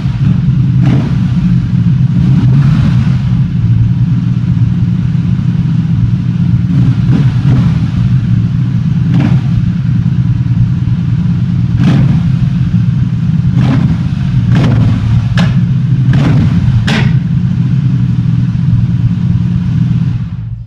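BMW R1100GS air/oil-cooled flat-twin boxer engine with a modified exhaust running loud and steady, with a string of short sharp bursts over it, most of them bunched in the middle. It cuts off near the end.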